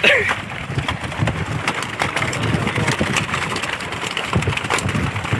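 Wet fishing net and a catch of batfish being hauled and handled on a bamboo platform: frequent short knocks and rustles over a steady low rumble, with a brief high falling cry right at the start.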